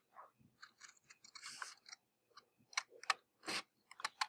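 Paper rustling and crackling in irregular short bursts with a few sharp clicks as paper skimmer pieces are handled.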